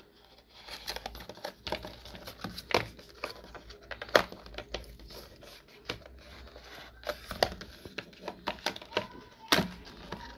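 Hands opening a cardboard SSD retail box and its plastic wrapping: packaging rustling and crinkling with irregular sharp clicks and taps, the sharpest about four seconds in and again near the end.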